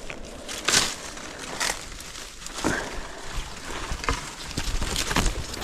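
Footsteps and brush rustling as a hiker pushes through dense undergrowth: irregular swishes and crackles of leaves and branches brushing past, about six of them, the loudest just under a second in.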